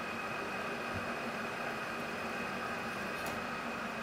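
Metal lathe running steadily with its chuck spinning, a steady hum with a high whine over it.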